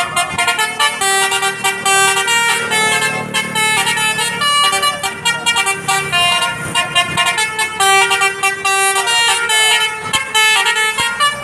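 Bus 'telolet' Basuri multi-tone horn playing a quick melody of short tooting notes, stopping near the end.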